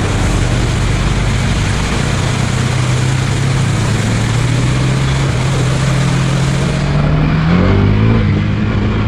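KTM Duke 390's single-cylinder engine running at low revs as the motorcycle wades slowly through flood water, under a steady hiss of water spray. About seven and a half seconds in, the engine note rises as the bike accelerates out of the deeper water.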